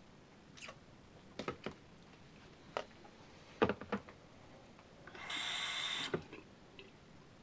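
Light clicks and taps of a comb and toothbrush being handled at a bathroom sink, then a steady rushing noise for under a second that cuts off abruptly, followed by one more click.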